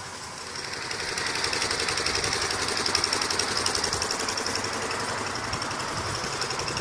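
A machine running with a rapid, steady mechanical rattle, growing louder about half a second in and then holding.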